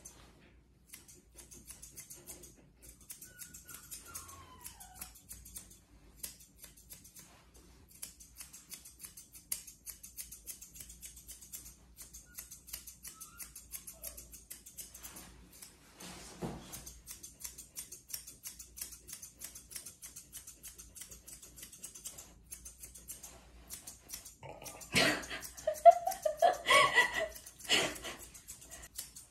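Grooming scissors snipping through a Samoyed's thick white coat in quick runs of crisp clicks. A louder vocal sound cuts in briefly near the end.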